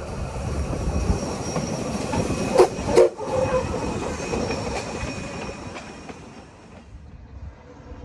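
Victorian Railways K class 2-8-0 steam locomotive K163 running past close by on the adjacent track, with steam and running noise. Two sharp strokes about half a second apart come near the middle, then the sound fades as the engine draws away.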